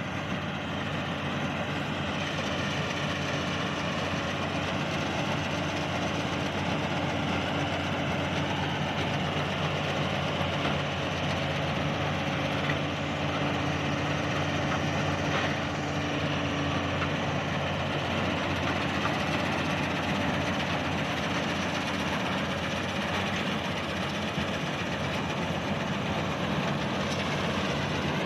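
Diesel engine and threshing machinery of a combine harvester running steadily while harvesting rice, with a constant hum and a dense mechanical clatter.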